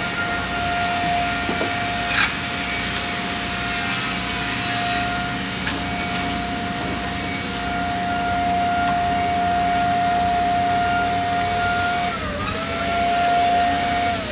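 A high-pitched electric motor, like a power tool's, running at a steady speed. About twelve seconds in it sags briefly under load and recovers, then winds down as it is switched off. A single sharp knock comes about two seconds in.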